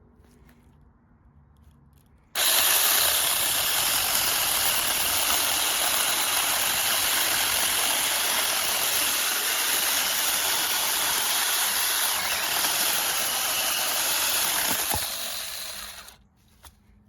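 Cordless 6-inch mini electric chainsaw running: it starts abruptly about two seconds in, runs steadily for about thirteen seconds, then winds down.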